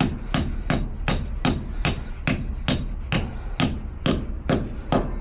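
Hammer tapping steadily, about two to three even blows a second.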